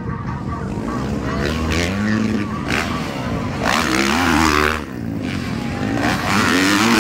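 Motocross bike engines revving hard as the bikes race up to the jump, their pitch rising and falling with each throttle blip. The loudest moment comes about four seconds in, as a bike goes close past.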